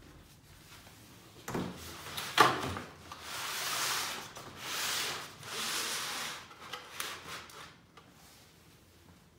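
Black plastic nursery pot and drip tray being set down and pushed into place on a hardwood floor: a few knocks, then three scraping slides and some smaller rubs.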